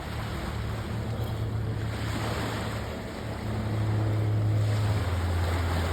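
Water washing in waves with wind buffeting the microphone, over a steady low motor hum that shifts to a slightly lower pitch about five seconds in.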